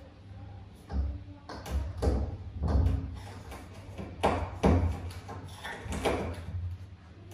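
A cat on the other side of a closed door pushing and pawing at it to get out, the door knocking and rattling in its frame in about seven irregular bursts.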